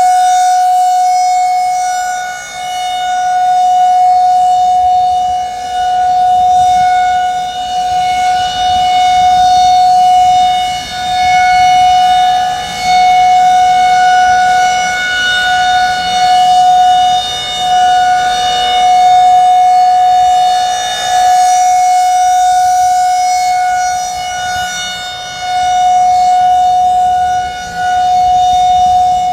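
Federal Signal 2001-130 rotating outdoor warning siren sounding a steady Alert tone, loud and close. The pitch holds level while the volume swells and dips every few seconds as the rotating horn sweeps past.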